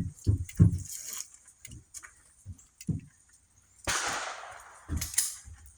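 Pistol shots, two sharp cracks with short echoing tails about a second apart near the end, among several short low thumps.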